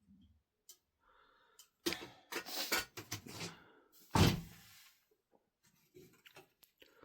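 Knocks and clatter from things being handled, then one loud, deep thump a little past four seconds in.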